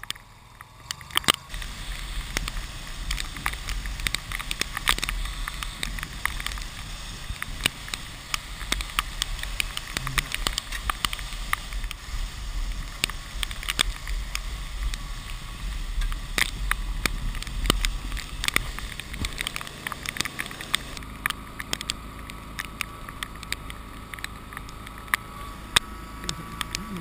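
A sled being towed over snow, heard through a GoPro's waterproof housing: a steady rush of wind and snow noise with a low rumble, and frequent sharp knocks as the sled bumps over the snow. The low rumble eases after about twenty seconds.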